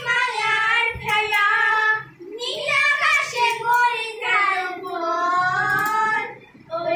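Two young girls singing a Bengali song together in three long phrases of held notes, with short breaks for breath about two seconds and four and a half seconds in.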